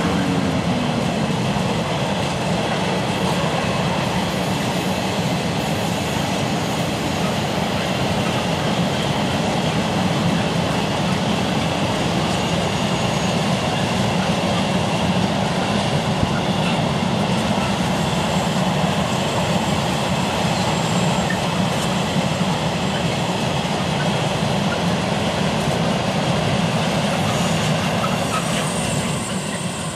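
A long rake of empty steel-carrying freight wagons rolling past with a steady rumble and clatter of wheels on rail. In the first second a low tone falls in pitch as the Class 92 electric locomotive heading the train draws away. The noise dies away near the end.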